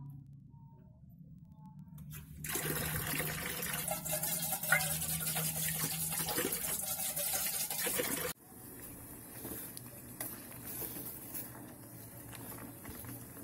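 Water pouring and splashing, a loud steady hiss that starts abruptly a couple of seconds in and cuts off about six seconds later, with one sharp clink near the middle. After the cut, a much quieter steady hiss remains.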